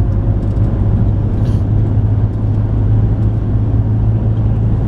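A car on the move, with a steady low rumble of engine and road noise.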